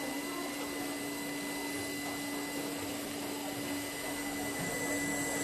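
Steady whirring of a small electric motor with a constant hum, from a science-centre exhibit switched on by a foot switch and running.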